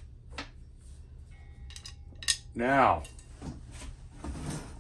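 Metal tools clinking and clanking as they are handled: several sharp metallic knocks, with a brief ringing tone in the middle.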